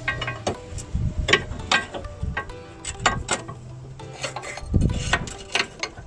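Hand tools working on a car's lower control arm bolt: irregular metallic clicks and knocks, one or two a second.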